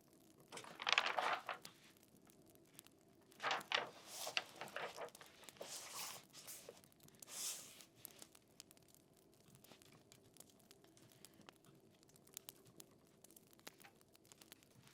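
Paper rustling in a few separate rushes, as pages are turned or shuffled, the loudest about a second in; after about eight seconds only faint scattered ticks remain.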